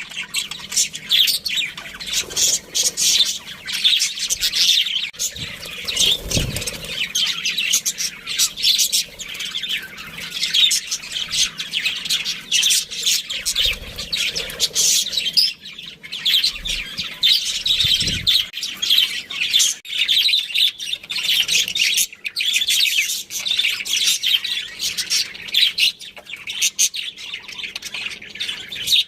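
Budgerigars chirping and chattering, many quick overlapping calls without a break, with a couple of soft low thuds.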